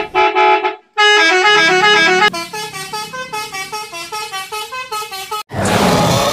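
Indonesian bus 'telolet' musical horn (telolet basuri) playing a quick tune of stepping notes, with a short break about a second in. It cuts off abruptly near the end and a fuller, noisier sound takes over.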